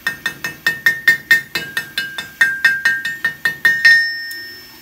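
Rapid light hammer blows on a steel anvil, about four or five a second, each ringing, as a hot hook is rounded over the anvil. The last blow rings on and fades.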